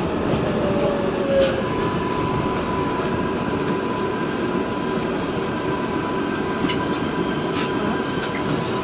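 Inside an R142A subway car slowing into a station: steady rumble and hiss of wheels on rail. A motor whine falls in pitch over the first second and a half, then a steady high tone holds, with a few light clicks near the end.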